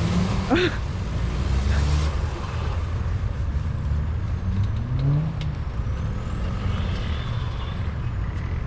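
Off-road 4x4 engine running at low revs, rising briefly in pitch as it revs about five seconds in. A short high rising squeal comes about half a second in.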